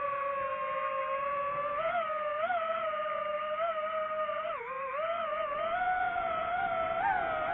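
DJI FPV drone's motors and propellers whining, the pitch holding steady and then rising and dipping in small glides as the throttle changes.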